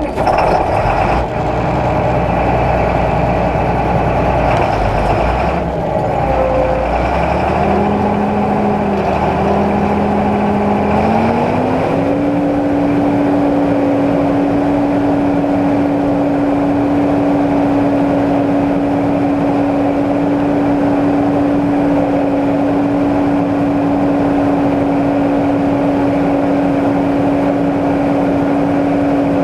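Combine harvester's engine running, its pitch rising in steps as it is throttled up from a lower speed, then holding steady at a higher speed from about twelve seconds in.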